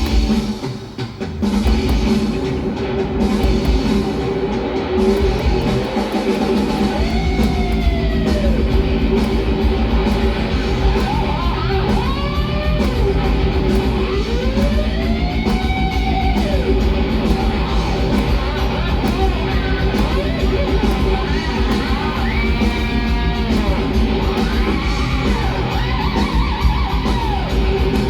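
Rock music instrumental break: an electric guitar plays a lead with notes that bend up and down over drums and bass. After a brief dip at the start the full band comes back in.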